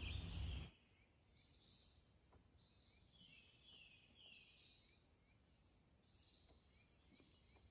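Faint bird chirps, short and repeated about once or twice a second, over near silence. A rush of noise cuts off suddenly in the first second.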